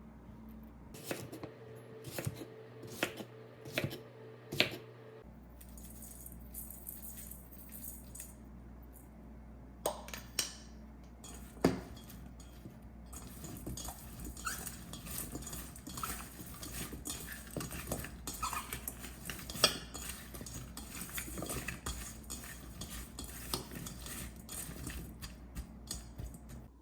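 Dishes and food containers being handled: a few sharp clinks and knocks in the first five seconds, a couple more around the middle, then a run of small, busy clattering.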